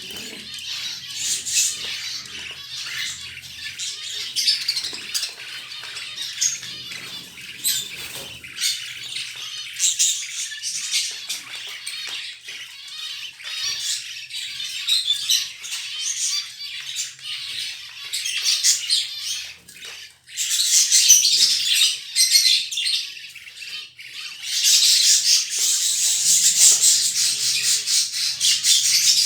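Budgerigars chattering and chirping continuously in a busy, high-pitched warble, growing louder about two-thirds of the way through.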